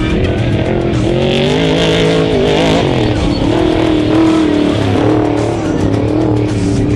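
Off-road race vehicle engines revving, their pitch rising and falling continually, under background music.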